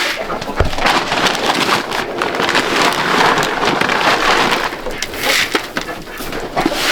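Rain falling close by in near-freezing weather: a steady hiss thick with sharp drop hits.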